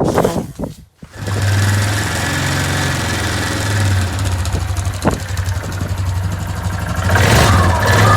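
Quad bike engine catching about a second in, then idling steadily, a little louder near the end. It now runs after its rat-chewed ignition cable was repaired.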